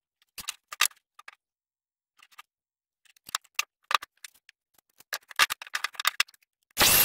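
Scattered clicks and knocks of pine blocks and hand tools being handled on a wooden workbench, with a busier run of knocks about five seconds in. A short, loud rushing burst starts near the end.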